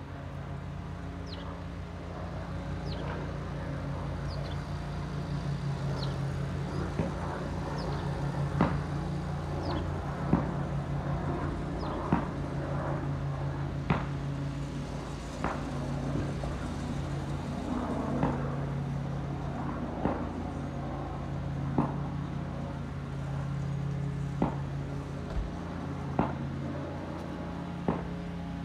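A steady low mechanical hum, with short, sharp bird chirps about every two seconds.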